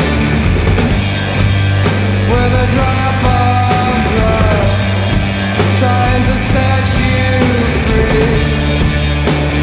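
Loud rock music with a heavy, steady bass and a regular drum beat; a wavering lead melody comes in about two seconds in.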